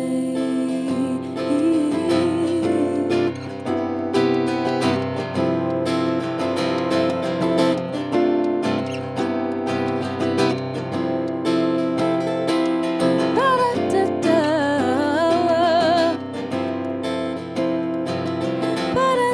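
Acoustic guitar strumming chords as a song's instrumental ending, with a singer's wordless vocal runs over it partway through.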